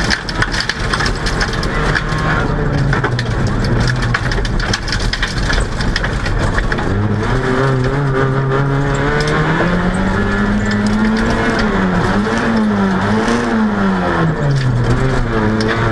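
VW Golf GTI 16V rally car's 16-valve four-cylinder engine heard from inside the cabin, revving hard on a gravel stage. The pitch climbs about halfway through, rises and falls twice, then drops near the end. Gravel keeps clattering against the car underneath.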